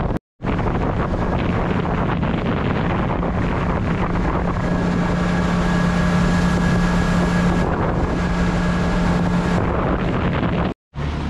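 Outboard motor pushing a boat along at steady cruising speed, its hum even throughout, with wind buffeting the microphone. The sound drops out briefly twice, just after the start and near the end.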